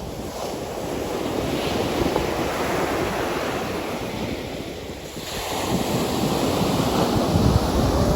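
Ocean waves washing on the shore, one surge swelling and fading, then a second building about five seconds in, with wind buffeting the microphone.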